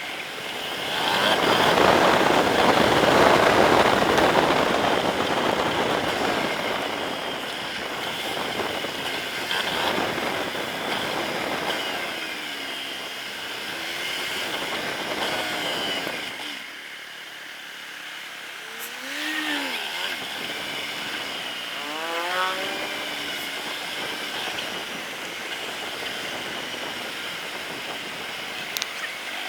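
Yamaha Serow 250's single-cylinder engine running on the move, under heavy wind noise that is loudest in the first few seconds. A little past the middle it goes quieter as the bike slows. Then the revs rise and fall, and rise again as it pulls away.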